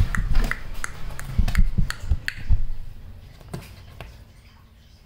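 A quick, irregular series of sharp clicks and light taps mixed with soft low thumps, lasting about two and a half seconds, then much quieter with one more click about three and a half seconds in.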